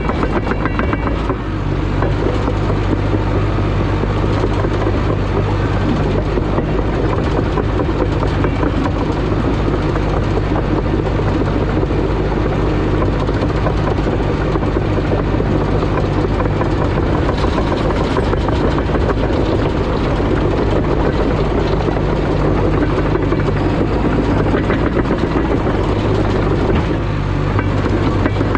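CAT D5 crawler dozer's diesel engine running steadily while the dozer works dirt.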